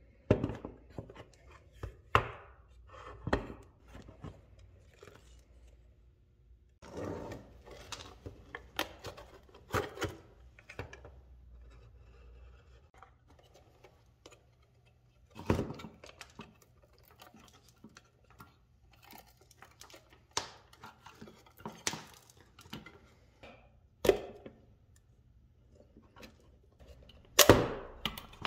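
An old 1970s metal-cased flashlight being handled and taken apart: scattered sharp knocks and clunks, with quieter rattling and scraping between them. The loudest knock comes near the end.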